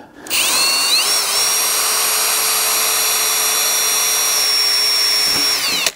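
Cordless drill boring a pilot hole through stovepipe: the motor spins up with a rising whine about half a second in, runs steadily for about five seconds, then winds down and stops just before the end.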